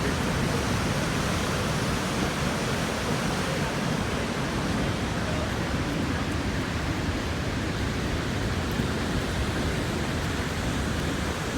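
Steady, unbroken rush of falling and rushing water from Vernal Fall in high spring flow.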